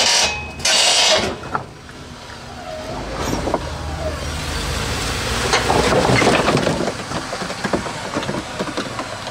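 Jeep Wrangler JL Rubicon reversing off a rock, its engine building in revs to a peak about two thirds of the way through. There is a loud rush of noise in the first second, and scattered knocks and crunches from the rock near the end.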